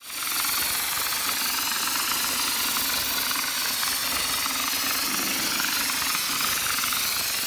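Compressed-air hopper spray gun spraying concrete onto a block wall: a steady hiss of air and spray.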